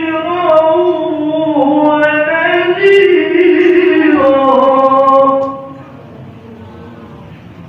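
Melodic Qur'an recitation (qiro'ah): a solo reciter's voice holds one long phrase whose pitch winds up and down. It ends about five and a half seconds in, leaving only faint steady background noise.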